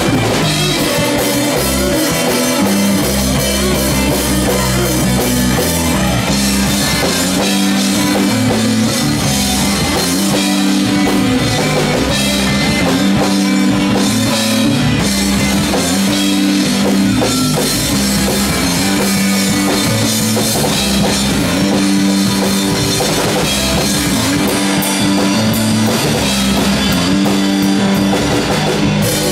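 A live rock band playing loud and steady on drum kit and electric guitar, over a repeating low riff.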